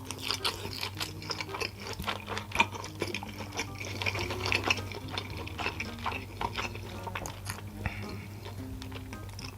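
Kitchen cooking sounds: dense, irregular clicks and crackles of food being worked in a pan, over a steady low hum, with one sharper clack about two and a half seconds in.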